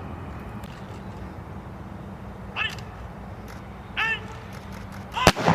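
Firing party's commander shouting three drawn-out commands in the distance, the last followed at once near the end by a single sharp rifle volley that rings out: the first volley of a funeral rifle salute.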